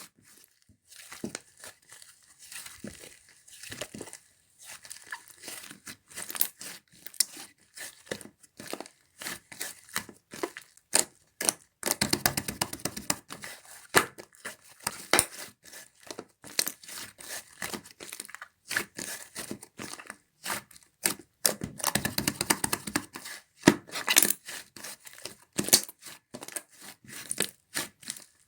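Slime being squished, pressed and stretched by hand, giving irregular sticky clicks and pops with two longer runs of dense crackling.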